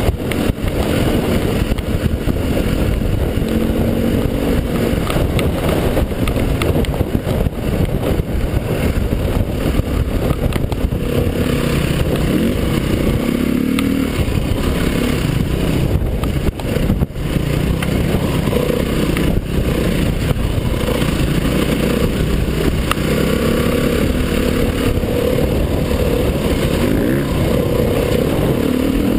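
Dirt bike engine running under way off-road, the revs rising and falling with the throttle, over heavy wind noise on the microphone.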